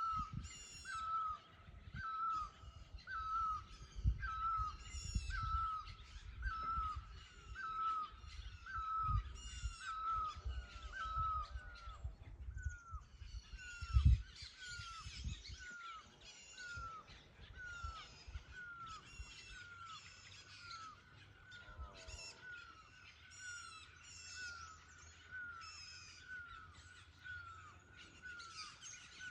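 A forest bird calls with a short falling note, repeated about once a second throughout and slightly faster in the second half, while other birds chirp higher above it. Low rumbling thumps come and go in the first half, with one loud thump about 14 seconds in.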